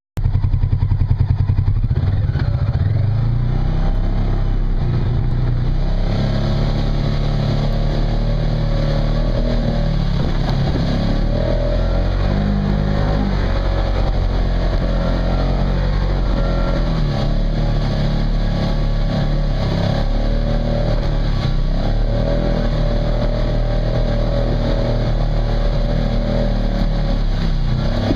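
The engine of a stock 2011 Polaris RZR XP900 side-by-side, an 875 cc parallel twin, pulling the machine steadily up a steep dirt trail in four-wheel low. Its pitch climbs over the first few seconds, then holds with small rises and dips.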